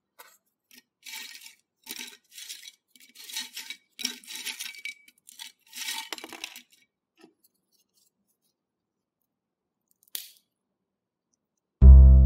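A hand rummaging through a bowl of crisp pork rinds, making dry crackling and rustling in several short bursts with light clinks. Loud music starts near the end.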